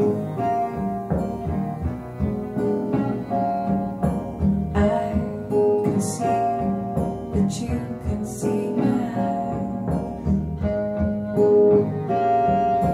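A recorded song playing through Xavian Giulietta floor-standing loudspeakers driven by a Carver CM1090 amplifier: a passage without sung words, held melody notes over a steady bass line.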